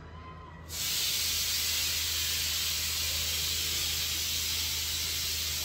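A steady, even hiss that starts abruptly under a second in and holds at one level.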